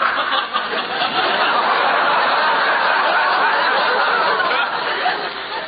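Studio audience laughing, a long, steady, loud laugh that eases off a little near the end.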